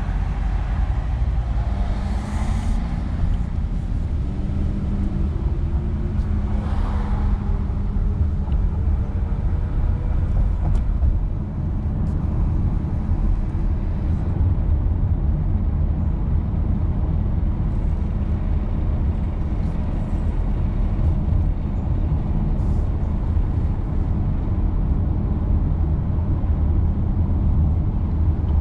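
Car driving with the front windows open, heard from inside the cabin: a steady, heavy rumble of wind and road noise. A few seconds in, a tone climbs slowly for several seconds as the car speeds up.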